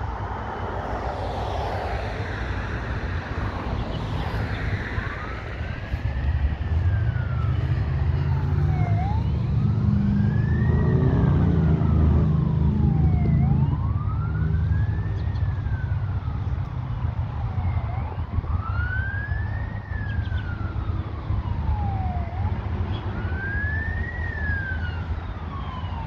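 Emergency vehicle siren wailing, rising and falling in slow cycles of about four and a half seconds. Under it a road vehicle's low rumble swells, loudest around the middle, then fades.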